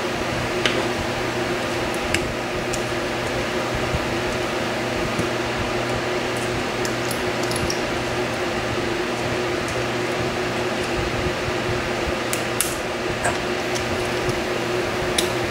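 Small, scattered metallic clicks and ticks as a tool pries at the retaining clip on the back of a lock core, over a steady background hum.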